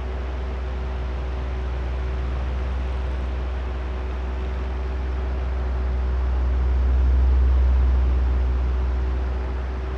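Oscillating electric fan running: a steady drone of motor hum and rushing air that swells louder about three-quarters of the way through and eases back as the fan head sweeps past.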